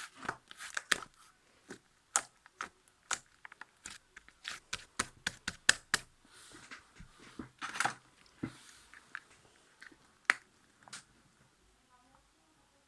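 Homemade slime with soothing gel mixed in being squeezed and pressed by hand, giving an irregular run of sharp sticky clicks and pops with a few longer, wetter squelches. It goes quieter over the last couple of seconds.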